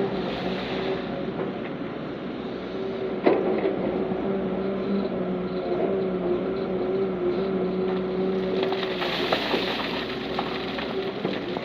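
Heavy diesel earthmoving machinery running steadily with an even engine hum, and a single sharp knock about three seconds in.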